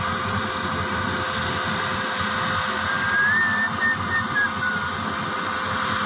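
Maxxi Bimo 110 Plus rice combine harvester running steadily while it cuts and threshes, a continuous engine and machinery hum with a steady drone. A thin wavering high tone comes and goes in the second half.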